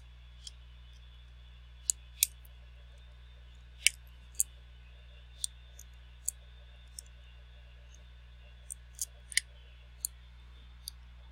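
Scattered sharp clicks and taps of small tools and phone parts being handled on a repair bench, about fifteen at uneven intervals, the loudest a few seconds in and again near the end, over a steady low electrical hum.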